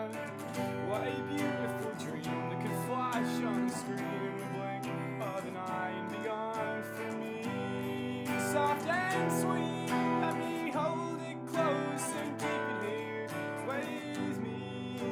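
Electric guitar strummed in steady chords while a man sings a folk-rock melody over it.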